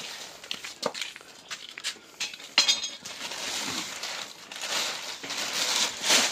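A plastic sack rustling and crinkling as it is handled, after scattered light clicks and one sharp knock about two and a half seconds in.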